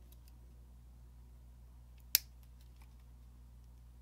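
Small flush cutters snipping a plastic casting stem off a styrene strip: one sharp snip about two seconds in, with a few faint ticks of the tool and the hands before it.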